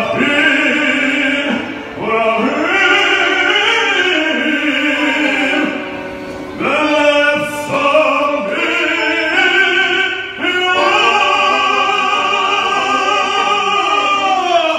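A male cantor sings through a handheld microphone in a full voice with long, bending notes. Near the end he holds one note for about four seconds before it falls away.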